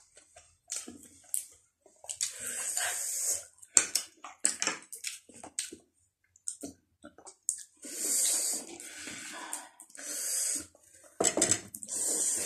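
A person slurping instant noodles off chopsticks, about four long slurps of a second or so each, with chewing and small mouth and utensil clicks between them.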